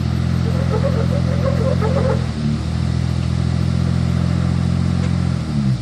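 Nissan Patrol GU4's TB48 4.8-litre straight-six petrol engine running steadily at low revs while rock crawling. Its note dips briefly about two and a half seconds in and again near the end. A run of light clattering sounds over the first two seconds.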